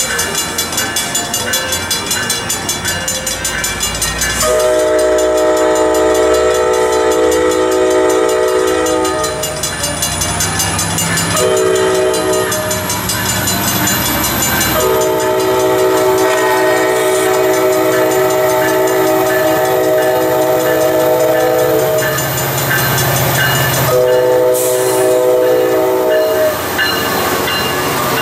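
Grade-crossing warning bells ringing, then a passenger train's locomotive sounding its multi-note air horn for the crossing in four blasts, the third held longest. The low rumble of the train grows as it draws near and passes.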